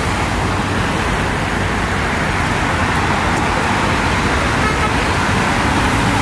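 Loud, steady engine roar that holds at one level, with no single pitched note standing out.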